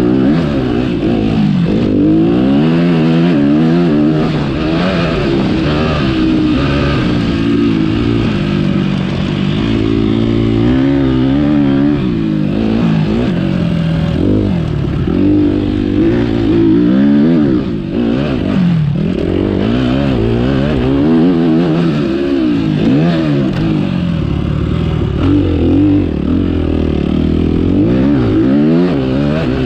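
Motocross dirt bike engine heard from on the bike, revving up and dropping back over and over as it accelerates, shifts and slows along the track.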